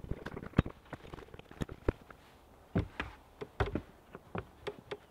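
Wooden floor panel being set down and shifted onto concrete blocks, then walked on: a dozen or so irregular knocks and thuds of wood on concrete and boots on the plywood deck.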